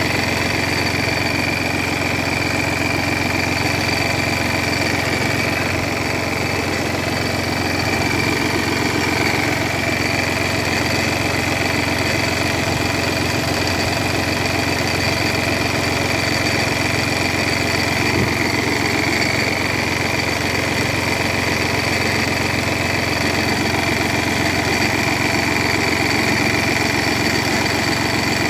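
Car alternator with very worn bearings giving a steady high whine at its pulley over the engine idling: excessive bearing wear, a sign the alternator could fail at any time.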